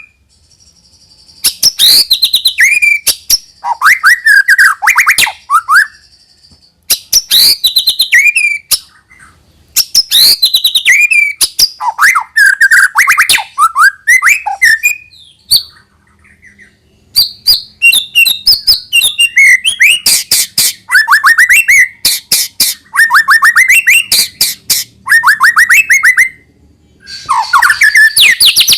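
White-rumped shama singing: loud, varied phrases of rapid clicking trills and whistled notes sliding up and down, each phrase a few seconds long with short pauses of about a second between them.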